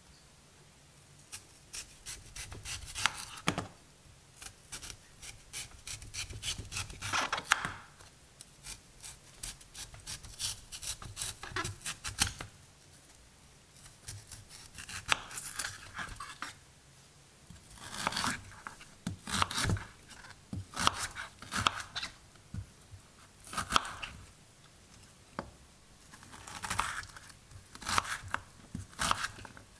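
Chef's knife cutting through raw, crisp peeled kohlrabi on a wooden cutting board: crunchy cuts come in runs of quick strokes with short pauses between them, first slicing rounds, then dicing the slices.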